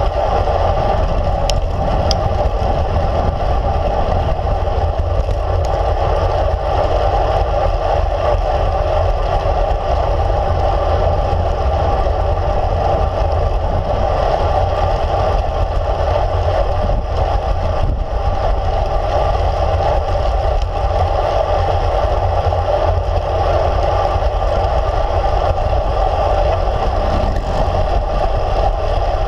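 Steady wind rush and road rumble picked up by a handlebar-mounted camera on a road bike riding along a paved road, a constant low rumble with a mid-pitched hum over it.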